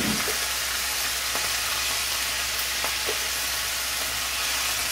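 Chopped onions frying in hot oil in a frying pan, with a steady sizzle. A low thump comes right at the start, and a few faint taps follow as more onions are scraped in from a bowl.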